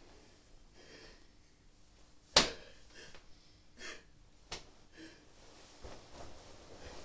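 Someone moving about on a bed: one sharp smack a little over two seconds in, the loudest sound, then a few softer knocks and short rustling noises.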